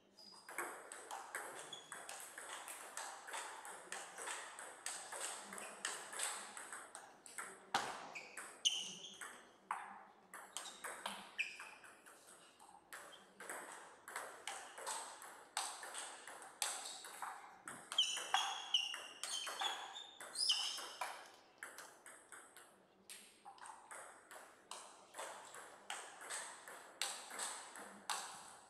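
Table tennis ball clicking off the bats and bouncing on the table through two rallies, a quick run of sharp ticks with short pauses between strokes, and short high squeaks in places.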